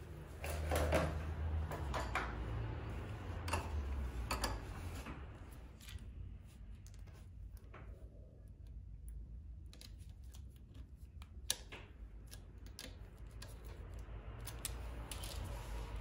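Light metal clicks and clinks of small steel parts being handled: a spacer and axle nut going onto an ATV front wheel hub by hand, busier at first and again near the end.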